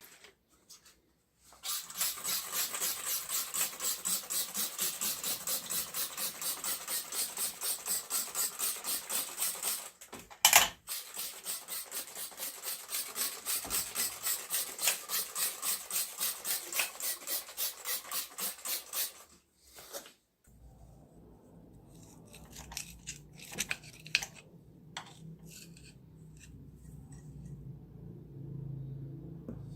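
Rhythmic hand scrubbing or scraping strokes, about three a second, on a Husqvarna 61 chainsaw piston during cleaning, with a single sharp knock about ten seconds in. The strokes stop around two-thirds of the way through, giving way to quieter handling clicks over a low steady hum.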